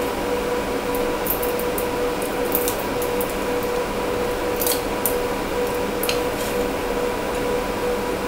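ABS raft being peeled off a 3D print by hand: a scatter of small crackles and snaps as the plastic parts separate, over a steady fan hum. The print was extruded about 20 degrees cooler, which lets the raft come away by hand.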